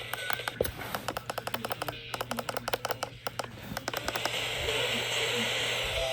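Radio receiver static: a steady hiss with a low hum, broken over the first few seconds by a rapid run of crackling clicks, then steady hiss.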